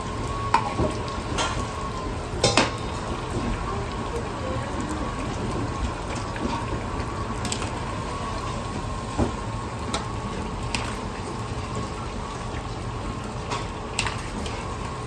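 Bitter gourd slices sizzling and bubbling in a wok full of hot oil, with a steady hum underneath. A metal ladle and wire strainer clink against the iron wok now and then, loudest as a sharp double clink about two and a half seconds in.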